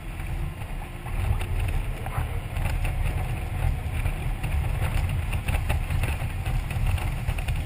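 Wind rushing over the mounted camera's microphone on a touring motorcycle riding at road speed: a heavy, uneven rumble, with the motorcycle's running noise beneath it.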